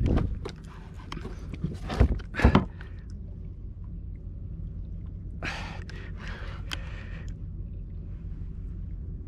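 An angler breathing hard and gasping while fighting a hooked fish on a bent rod, with three sharp knocks against the kayak in the first few seconds, over a steady low rumble.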